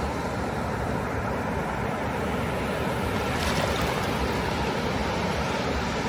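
Ocean surf breaking and washing up a flat sandy beach: a continuous rushing wash, with the hiss growing brighter as a wave breaks about three and a half seconds in.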